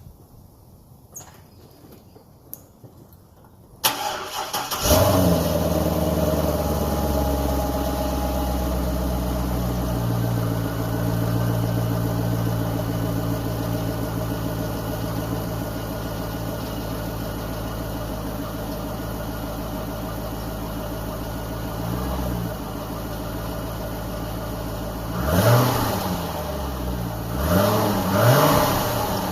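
Stock C6 Corvette V8 cold start: a few faint clicks, then the starter cranks about four seconds in and the engine catches, settling into a high fast idle that drops lower around ten seconds in. Near the end it is revved three times, each rev rising and falling. Not that loud, on the stock exhaust.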